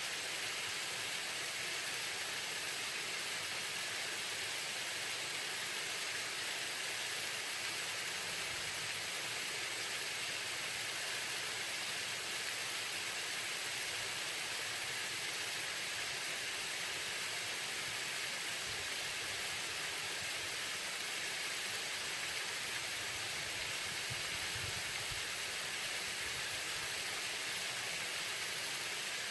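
Waterfall: a steady, unbroken rush of falling water, mostly high hiss with little low rumble.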